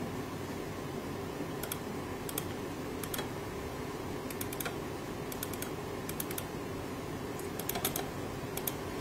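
Computer mouse clicking while working through driver installers: about a dozen sharp clicks at uneven gaps, many in quick pairs, over a steady low background hum.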